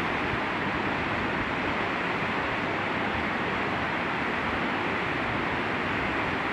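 Fast mountain river rushing over a rocky bed: a steady, unbroken rushing hiss.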